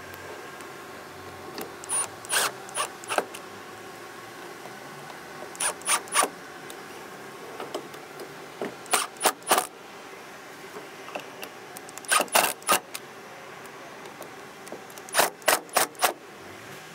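Cordless impact driver tightening Phillips screws in short trigger bursts: five brief clusters of quick hits a few seconds apart.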